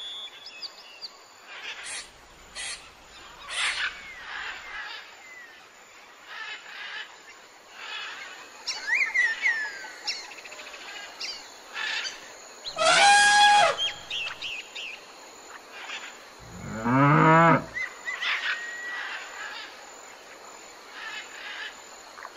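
Birds chirping and calling in short phrases, broken by two loud drawn-out animal calls past the middle, the second one falling in pitch like a cow's moo.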